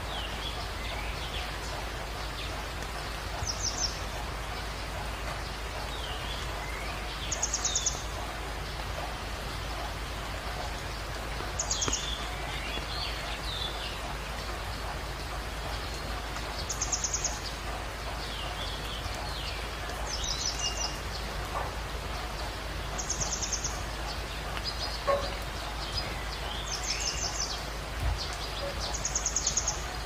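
Steady hiss of rain and running water from a forest stream. A small songbird repeats a short, fast, high trill about every three to four seconds, eight times, with softer chirps in between.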